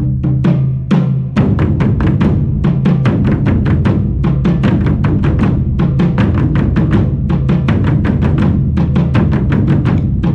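Drum-led music: a fast, even run of drum strikes, about four or five a second, over sustained low notes.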